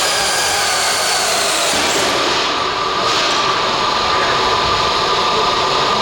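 Electric drive motors and gearing of an RC pulling vehicle whining steadily under load.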